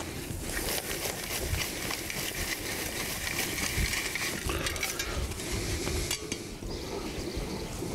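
Gloved hands scraping and crumbling dry dirt and grass at a trap bed: a steady gritty rustle with many small clicks. Low wind rumble on the microphone runs underneath.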